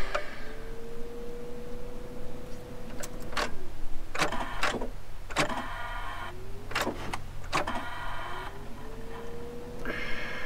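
Pickup truck's starter motor whining, rising in pitch and holding steady, three tries with clicks between, without the engine catching: the truck won't start.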